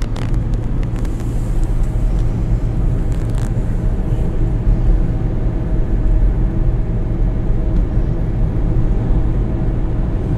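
Car driving at speed on a highway, heard from inside the cabin: a steady low rumble of engine and tyres with road hiss above it, and a few small clicks.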